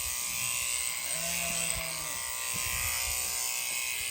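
Electric sheep-shearing handpiece buzzing steadily through the fleece. About a second in, the sheep gives one short, low grumbling call.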